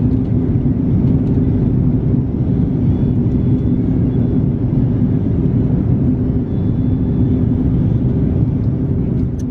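Jet airliner cabin noise at cruise from a window seat: a loud, steady rumble of engines and rushing air, with a faint even hum running through it.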